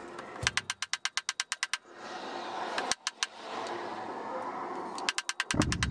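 Dead blow hammer striking the lower headset bearing cup of a Sur Ron Light Bee, driving the tapered roller bearing cup into the steering head. The blows come in fast runs of sharp impacts, about ten a second: one run starting about half a second in, three blows around the middle, and another quick run near the end.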